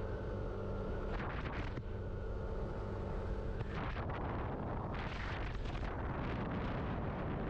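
Yamaha Aerox scooter riding along, its engine humming steadily for the first few seconds. From a few seconds in, gusty wind buffeting the microphone takes over.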